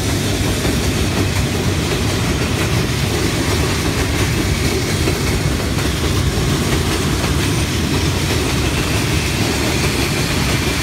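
A train running steadily along its track, a continuous low rumble with no break.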